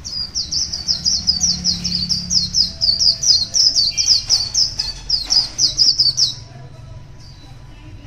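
A caged white-eye sings a fast, continuous run of high, thin chirping notes, about five a second. The song stops abruptly about six seconds in. A low rumble runs underneath.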